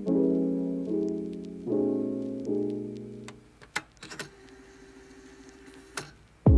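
Soft piano background music that stops about halfway through. A few faint clicks and taps follow as a tablet is handled over a desk.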